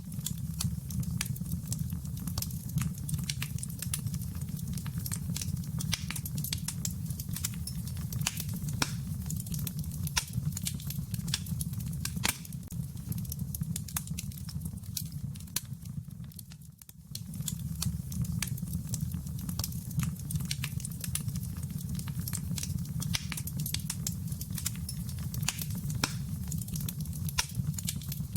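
Wood fire crackling in a fireplace: scattered sharp pops and snaps over a steady low rumble of flames. The sound dips briefly about seventeen seconds in.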